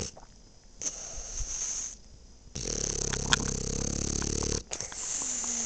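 French bulldog snoring in its sleep: three noisy breaths with short pauses between them. The middle breath, about halfway through, is the longest and loudest, with a low rattling snore.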